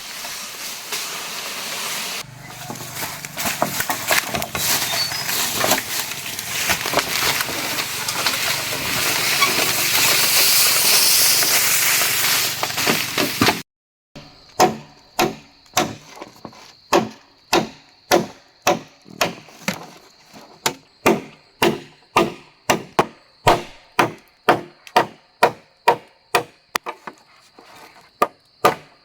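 Chopping on wood: a dense, rough stretch of work noise that grows louder, then breaks off. After that come steady, evenly spaced chopping strikes, about two a second.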